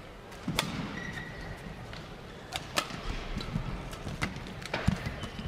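Badminton rally: rackets striking the shuttlecock as sharp pops every second or so, the loudest about half a second in, near three seconds and near five seconds, with a brief shoe squeak on the court about a second in and a low hall murmur underneath.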